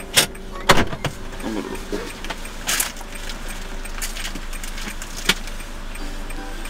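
Handling noise in a car cabin: a series of sharp clicks and knocks, two loud ones within the first second and more about three and five seconds in, over a faint steady background.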